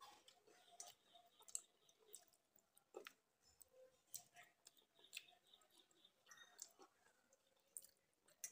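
Quiet, faint eating sounds: scattered small clicks of fingers mixing rice soaked in water in a steel bowl, together with chewing.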